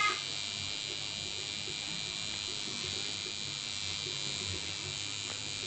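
Coil tattoo machine buzzing steadily while tattooing skin.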